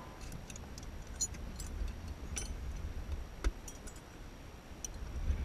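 Scattered light clicks and clinks from hands handling fittings in a glider's open cockpit, over a low steady rumble.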